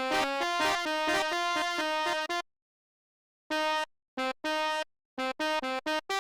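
Sampled telolet basuri bus horn played as a melody: a quick run of horn notes stepping up and down in pitch, a silence of about a second, then a string of short, separate blasts.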